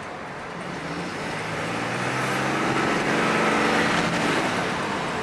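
Cummins turbo diesel inline-six of a Dodge Ram 3500 accelerating, heard from inside the cab. The engine note climbs and grows louder over about three seconds with a faint high turbo whistle over it. It eases off near the end, where the driver hears the wastegate blowing off.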